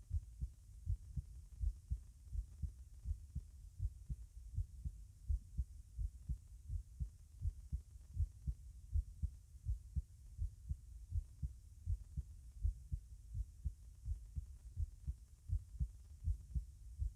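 Human heart sounds heard at the tricuspid area, with the person sitting: a quick, even run of low, dull thumps.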